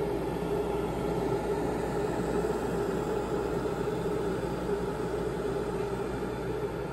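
Chew Fun glass electric kettle heating water close to the boil: a steady hiss and rumble as bubbles form on the heating plate.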